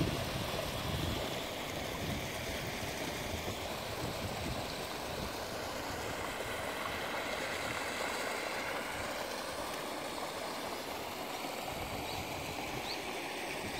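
Shallow stream rushing over a low weir of stacked stones: a steady rush of water, a little louder in the first second.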